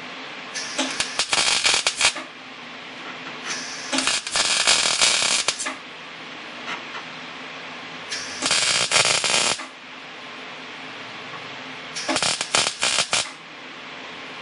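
Wire-feed (MIG) welder arc crackling on a steel car frame in four short welds of a second or two each, about a second in, near four seconds, near eight seconds and near twelve seconds. A steady hum and hiss runs underneath between the welds.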